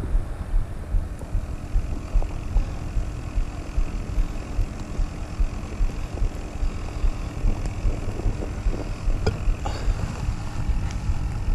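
Wind buffeting the microphone: a gusty low rumble, with a few faint ticks near the end.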